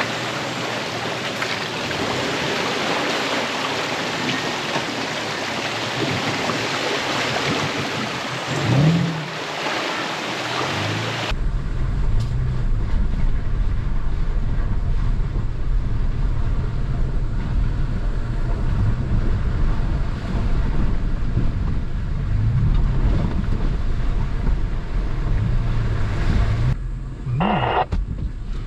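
Rushing stream water as an SUV wades through the crossing. About eleven seconds in this cuts to an off-road vehicle's engine rumbling and rising and falling in revs as it climbs a muddy trail, with a short higher tone near the end.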